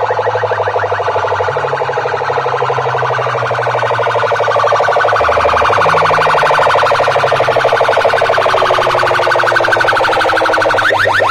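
Electronic siren-style effect played at high volume through a DJ sound system's horn loudspeakers and amplifiers. Fast, evenly repeating rising chirps run over a low bass tone that steps in pitch. The chirps blur into a warbling wail through the middle and come back sharp near the end.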